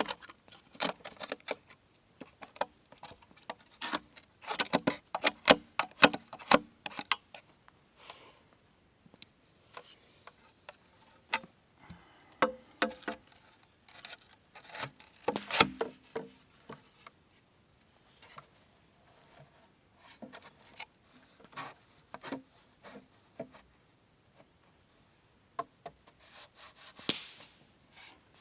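Bamboo being worked by hand: irregular clicks, knocks and light scraping of bamboo pieces, with clusters of louder knocks about five seconds in and again around fifteen seconds.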